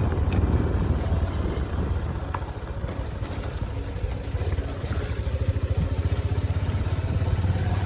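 Vehicle engine running steadily with a fast, even pulse, at a constant speed.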